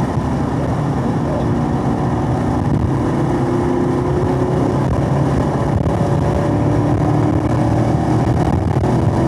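Chevrolet Camaro SS 1LE's 6.2-litre V8 pulling under full acceleration in fourth gear, its revs climbing steadily from about 3,500 to nearly 5,000 rpm, heard from inside the cabin.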